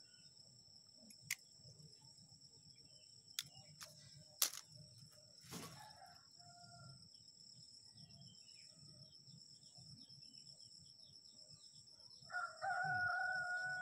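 A rooster crows once near the end, a long held call of about two seconds that drops slightly in pitch as it ends. A steady high insect drone runs underneath, and a few sharp clicks come in the first six seconds.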